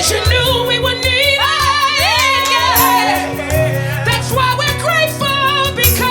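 Live gospel worship music: a singer's voice sliding up and down in long runs over the band, with a steady beat.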